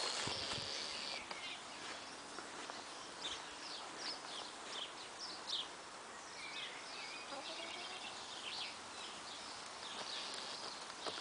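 Wild birds chirping and singing, with many short high calls scattered throughout, over a faint steady hiss of outdoor background noise.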